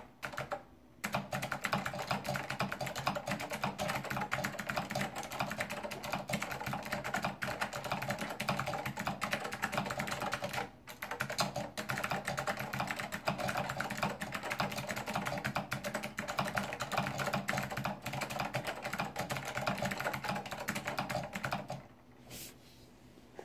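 Fast, continuous typing on a Monterey K2AX keyboard with clicky SKCM Blue Alps switches, fitted with thick PBT keycaps from an Apple Extended Keyboard II. The key clicks run in a dense stream with two short gaps, about a second in and near the middle, and stop near the end.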